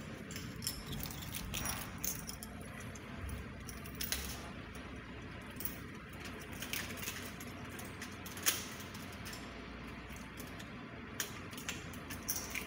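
Keys jangling, with scattered light clicks and rattles as a cabin door's lever handle and lock are worked, the sharpest click about eight and a half seconds in, over a low steady hum.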